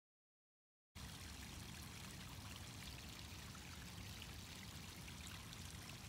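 Faint, steady outdoor rushing hiss with a low rumble beneath it, which starts abruptly about a second in after dead silence.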